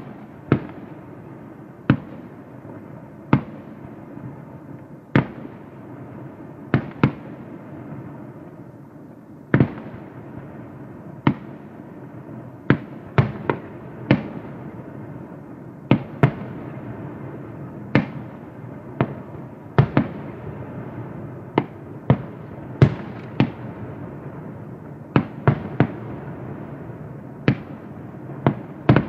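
Aerial firework shells bursting, a sharp bang every second or so, sometimes two in quick succession, over a continuous rumble.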